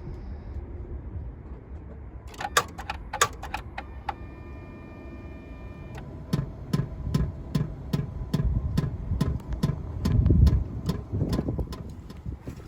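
2008 Chrysler Town & Country minivan making repeated low thumps under a regular ticking of about two to three a second, after a steady electronic chime of about two seconds. The thumping is the van's fault noise, which the owner thinks is probably an actuator valve.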